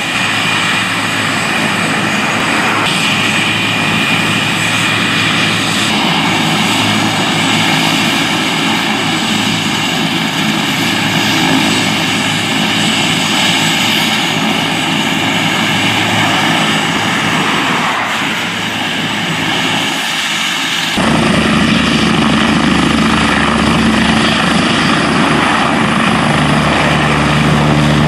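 Medical helicopter running on the ground with its rotors turning: a steady rotor and turbine noise with a high whine through it. About 21 seconds in it becomes louder, with a strong low rotor drone, as the helicopter lifts off.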